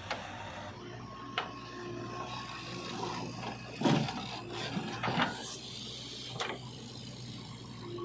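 Backhoe loader working: a steady low machine hum with a handful of knocks and clatters, the loudest about four seconds in.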